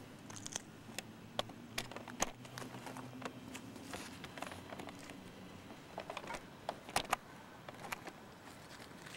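Footsteps on concrete and handling noise from a hand-held camcorder: irregular light ticks and scuffs over a faint steady low hum.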